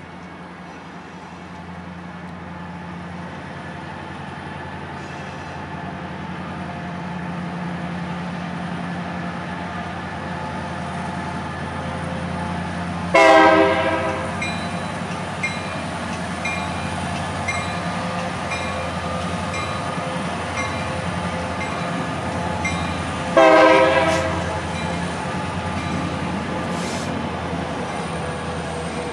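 BNSF freight train passing, its diesel locomotive's engine hum growing louder as it approaches. About halfway through and again about ten seconds later, the locomotive sounds two short, loud multi-tone horn blasts. Wheels click over the rail joints as the freight cars roll by.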